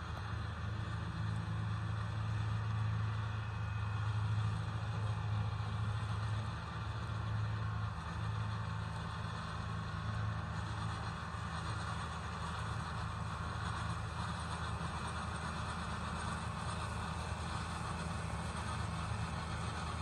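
RK 55 tractor's diesel engine running steadily under load, driving a drum mower through hay: an even, low engine drone.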